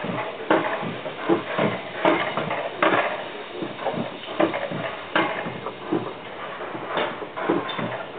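Bobsled coaster cart running down its twin steel rail track, clacking and rattling irregularly about twice a second over a steady rushing rumble.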